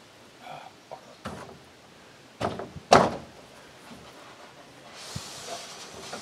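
A series of knocks and clunks as solar panels are shifted and fitted on a wooden ground-mount rack, the loudest about three seconds in. A soft rushing hiss comes in near the end.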